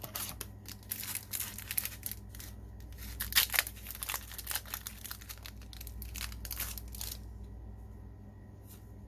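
A trading-card booster pack's plastic wrapper being crinkled and torn: a rapid run of sharp crackles and rustles, loudest about three and a half seconds in, that stops about seven seconds in.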